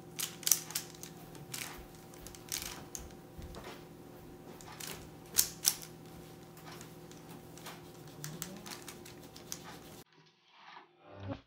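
Plastic 3x3 Rubik's cube clicking as its layers are turned by hand: irregular quick clicks and clacks, with a few louder snaps, stopping about ten seconds in.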